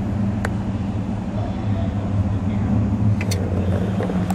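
Background din of a busy indoor exhibition hall: a steady low hum with faint distant voices, broken by a few sharp clicks.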